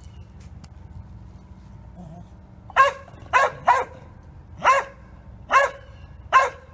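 A feist squirrel dog barking treed at a squirrel hidden up a tall tree. After a quiet start, six short, sharp barks come about three seconds in, spaced roughly a second apart, with two in quick succession.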